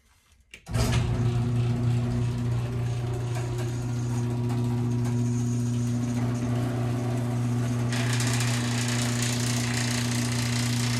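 Overhead garage door opener running as it raises the door: a steady motor hum that starts about a second in, with a brighter hiss joining about eight seconds in.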